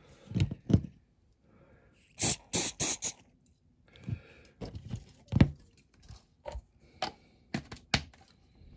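Small handling noises from a diecast toy car body and thin metal plates: scattered clicks and taps as they are picked up, pressed and set down on the cutting mat. About two seconds in come four short, sharp scraping sounds in quick succession.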